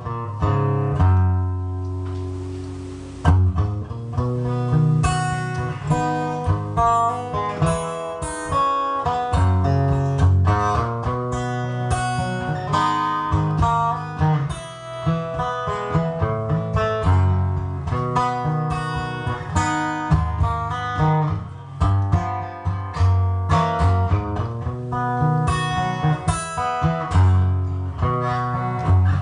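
Solo acoustic guitar playing a song's instrumental opening: a chord left ringing for the first three seconds or so, then a steady strummed rhythm of chords.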